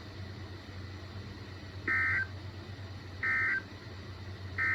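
Emergency Alert System SAME data bursts sending the End of Message code: three identical short two-tone warbling bursts, about a second and a half apart, closing the severe thunderstorm warning broadcast. A low steady hum runs underneath.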